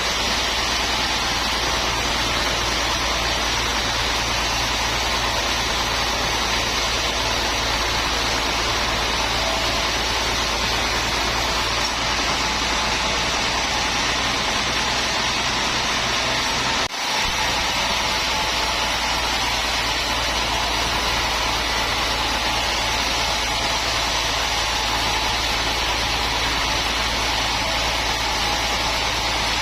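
Sawmill machinery running with a loud, steady mechanical drone, with a momentary break a little over halfway through.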